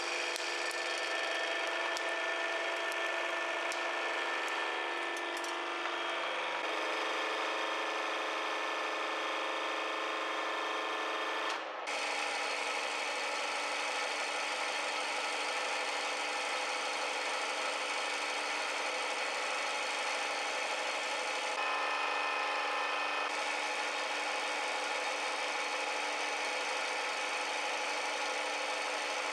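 Hydraulic press running with a steady, even mechanical whir and hiss. A few faint cracks of hard candy being crushed under the ram come in the first few seconds. The sound changes abruptly about twelve seconds in.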